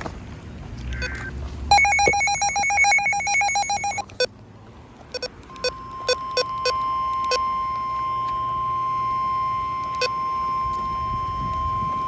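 Midland handheld NOAA weather radio going into alert: a rapidly pulsing electronic alarm beep for about two seconds, then a few short clicks from its buttons, then the steady single-pitched weather alert tone held for about six seconds. That tone is the signal that a warning broadcast is about to follow.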